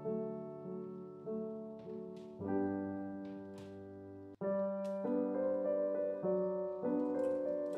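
Background solo piano music playing a gentle melody over chords, with a momentary dropout about four seconds in.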